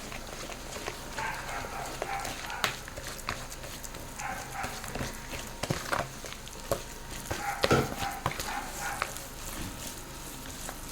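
A spoon mixing ground ogbono, palm oil and meat stock into a thick paste in a bowl: irregular knocks and scrapes of the spoon against the bowl, with wet stirring noise.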